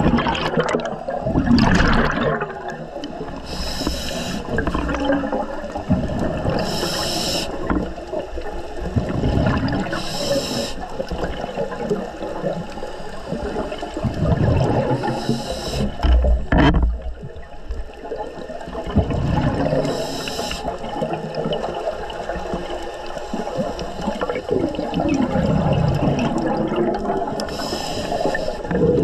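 Scuba diver breathing underwater through a regulator: a short hiss with each inhale every few seconds, and a low bubbling rumble of exhaled air between them.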